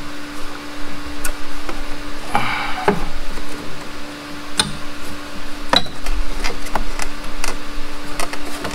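Scattered light clicks and knocks, about seven or eight, as a cardboard template and a piece of sheet metal are handled and test-fitted against the tractor's footwell panels beside the pedals, over a steady low hum.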